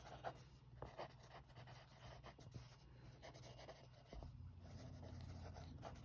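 Faint scratching of a pen writing on a paper workbook page, in short strokes, with a low hum joining about four seconds in.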